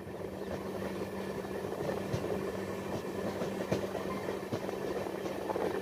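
Indian Railways 3AC economy passenger coach rolling at low speed, heard from its open doorway: a steady low hum over the running rumble, with scattered light clicks and knocks from the wheels on the rails.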